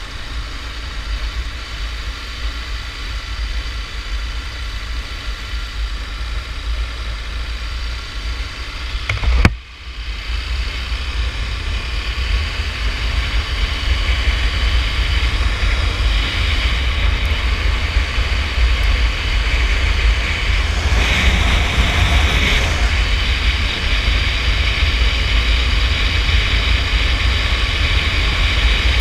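Motorcycle riding: wind buffeting the microphone over the steady run of the bike's engine. About a third of the way in there is a sharp click, after which the wind noise is louder and hissier, as at higher road speed, with a brief louder swell later on.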